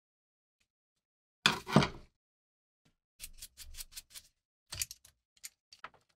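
Metal scraping and clicking as a rusted pommel nut on an antique Bowie knife is worked loose with a screwdriver and locking pliers: one loud scrape about a second and a half in, then a quick run of small clicks and a few more near the end.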